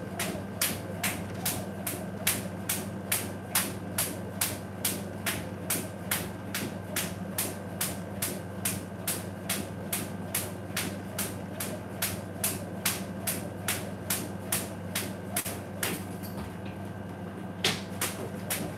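Cable jump rope slapping a tile floor on each turn, an even run of sharp ticks a few times a second. The rhythm thins briefly near the end, over a steady low hum.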